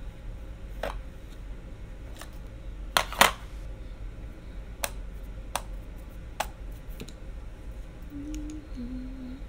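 Scattered clicks and taps of makeup cases and brushes being handled, about one a second, the loudest a quick double tap about three seconds in. Near the end, a short two-note hum from the woman, the second note lower.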